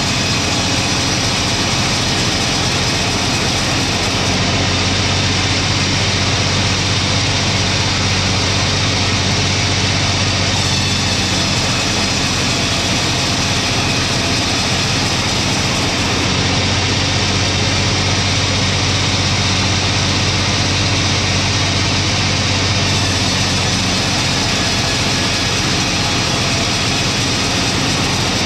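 Engine-driven sawmill running steadily, a constant low engine hum under a dense, even sawing noise, with no pauses or changes in speed.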